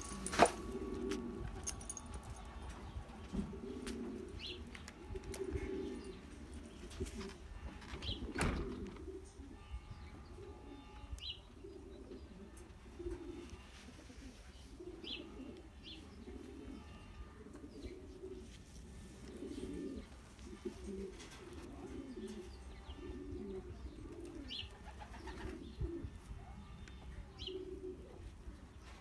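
Racing pigeons cooing over and over, with a few short high chirps. A sharp knock sounds about half a second in, and another at about eight seconds.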